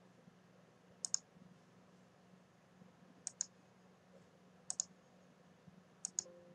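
Computer mouse button clicked four times, a second or two apart, each click a quick double tick of the button going down and coming back up, over a faint steady low hum.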